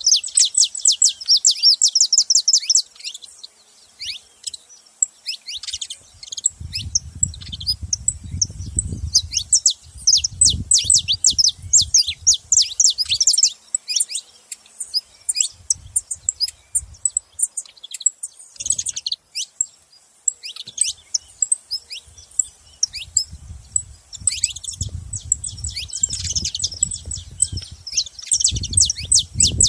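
Saffron finch chirping in rapid runs of short, high notes, with brief pauses between runs. A low rumbling noise comes in twice, about a quarter of the way in and again near the end.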